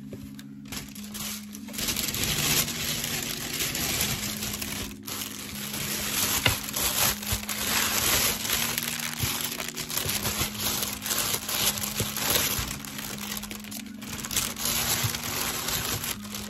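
Thin plastic bag crinkling and rustling continuously as hands handle and open it, over soft background music.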